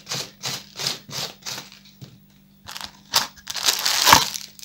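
Handheld vegetable shredder scraping crisp shreds off a head of white cabbage in regular strokes, about three a second, stopping a little under two seconds in. After a few clicks there is a knock on the cutting board, with crinkly rustling near the end.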